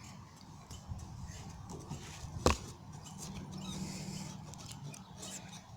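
A single sharp knock about two and a half seconds in, over a faint low hum.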